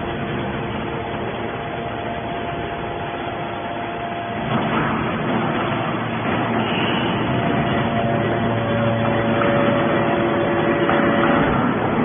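A hydraulic scrap-metal baler running: a steady machine hum with several whining tones from its hydraulic pump. The hum gets louder and its tones change about four and a half seconds in.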